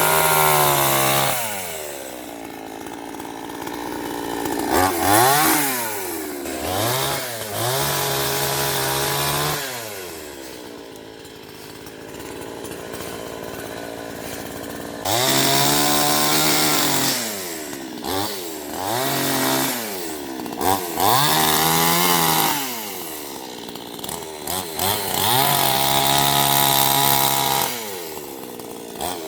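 Chainsaw engine revving and cutting wood, its pitch repeatedly dropping and rising again. It falls back to a quieter idle for several seconds around the middle, then revs up again.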